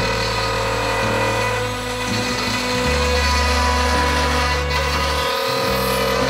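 CNC router spindle milling a curved slot into an aluminium plate, a steady machine whine with cutting noise, over background music with a shifting bass line.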